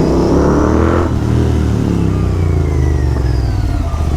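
Royal Enfield Continental GT 650 parallel-twin with Red Rooster aftermarket exhausts accelerating away: the revs climb for about a second, then after a gear change the pitch eases down slowly as it pulls on.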